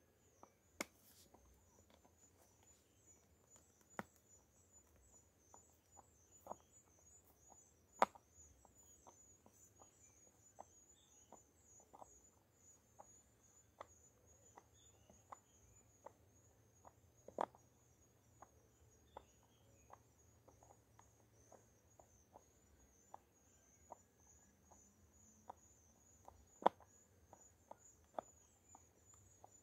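Faint, irregular ticking and clicking of a small screwdriver turning screws out of a plastic-pipe bait trap, with a few sharper clicks standing out. The screws are somewhat rusted and hard to get out.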